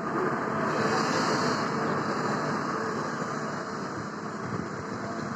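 Steady mechanical running noise, as of a marble-working CNC machine in operation. A brief hiss swells about a second in.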